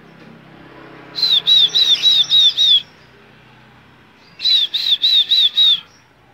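Strawberry finch (red avadavat) calling: two quick runs of loud, high, repeated chirps, about six notes and then five, each run lasting a little over a second.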